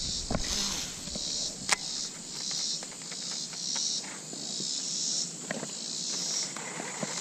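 Insects chirring in high, pulsing waves that swell and fade about once a second, with a single sharp click a little under two seconds in.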